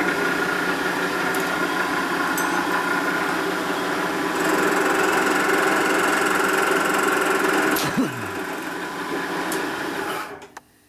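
Lagun vertical milling machine running, its cutter taking a light pass across an aluminum Harley panhead cylinder head under power feed; a steady machining sound with held tones that grows louder about four seconds in. A clunk comes about eight seconds in, and the machine stops near the end.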